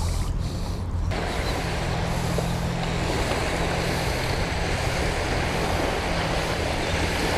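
An engine running steadily with a low hum, and a loud rush of wind and water noise that comes in suddenly about a second in and holds.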